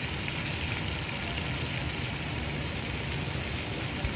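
Chicken legs and seasonings sizzling steadily in a cooking pot, cutting off suddenly at the end.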